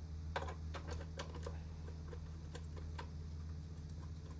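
Light clicks and taps of a pistol grip being fitted onto the Kodak Super 8 camera's tripod mount, in a quick cluster about half a second in and a few more around two and a half to three seconds in, over a steady low hum.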